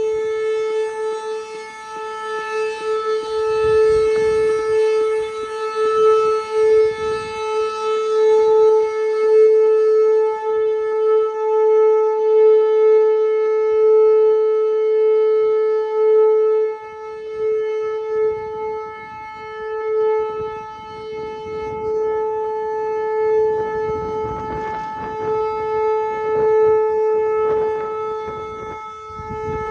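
Whelen Vortex R4 rotating outdoor tornado warning siren sounding a steady, unchanging tone during a test. Its loudness swells and fades every few seconds as the rotating head sweeps past.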